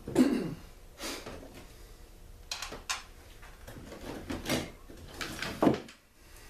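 A small two-stroke generator being shifted and turned on a wooden workbench, with a few knocks and scrapes, loudest just after the start. Near the end comes another sharp knock as a tool is taken up.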